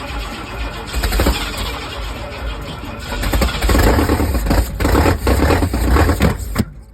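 Engine cranking and running unevenly while it is being coaxed to start with the ignition timing being adjusted, loud and irregular, getting louder in the second half and cutting off abruptly near the end.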